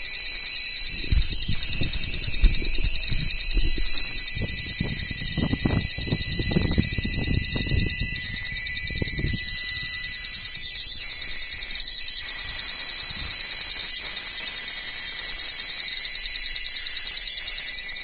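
Steady high-pitched electrical whine and buzz from the running high-voltage coil setup and its power inverter, several fixed tones sounding at once. Low bumps and rustling come and go from about one to ten seconds in.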